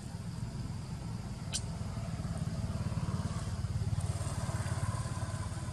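Motorbike engine passing by, growing louder to a peak about four seconds in and then fading.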